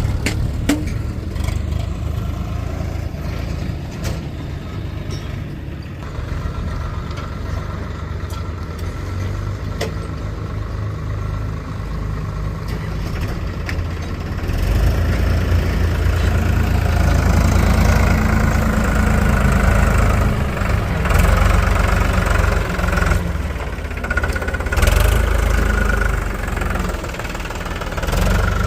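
Diesel engine of a backhoe loader running, rising to a louder, harder-working level about halfway through.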